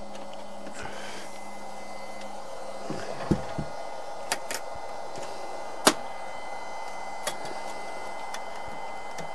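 A few sharp metal clicks and knocks as the door and latch of a sheet-steel smoker cabinet are handled, the loudest about six seconds in, over a steady hum.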